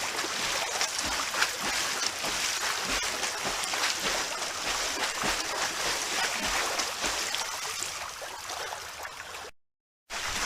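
Continuous splashing and churning of water from swimming strokes in a pool, with many small irregular splashes. The sound cuts out for about half a second near the end, then comes back.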